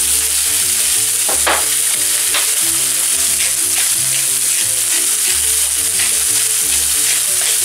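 Sliced champignon mushrooms and halved cherry tomatoes frying in olive oil in a pan: a steady, even sizzle with a few sharper crackles.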